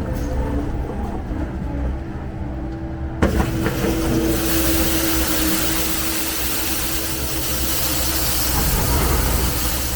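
John Deere 325G skid steer's diesel engine running steadily. About three seconds in there is a sharp knock, and then the Paladin sweeper's broom is heard as a loud, even hiss brushing over the pavement along with the engine.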